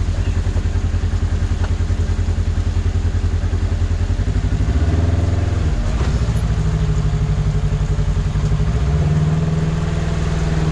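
Polaris RZR XP1000's parallel-twin engine running at low revs while rock crawling, with a brief rise in revs about five seconds in and again near nine seconds.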